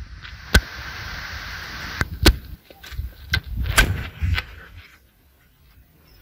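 Wind rushing over the microphone with low rumbling, broken by about six sharp pops and knocks; it dies down to a faint hiss about five seconds in.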